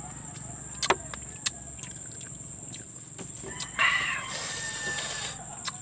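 A rooster crows once, a call of about a second and a half starting nearly four seconds in, the loudest sound here. Before it come a few sharp mouth clicks and smacks from eating the fruit.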